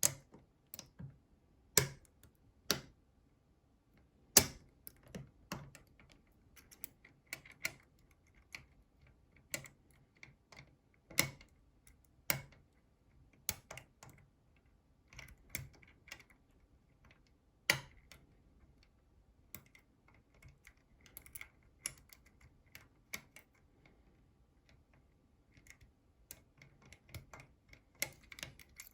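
Irregular small metallic clicks and taps of lock tools working inside a NATO Mersey 10-lever lock, at uneven intervals, with a few sharper knocks among them.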